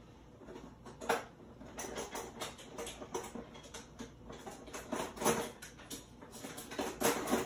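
Scattered clicks, taps and light knocks of kitchen utensils being handled, as when rummaging for a spatula, with louder knocks about a second in, around five seconds and near the end.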